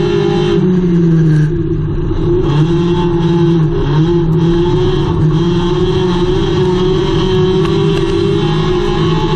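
Front-wheel-drive Hornet-class dirt track race car's engine running hard under throttle, heard loud from inside the cockpit. Its pitch rises and falls as the throttle changes through the corners.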